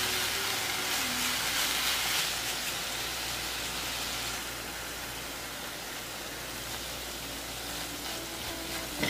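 Dried anchovies sizzling as they stir-fry in a stainless steel pan; the sizzle is strongest for the first four seconds or so, then eases.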